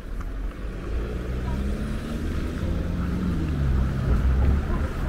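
Street traffic: a motor vehicle passes close by, its engine note sliding down in pitch as it goes, over a low, steady rumble that swells near the end.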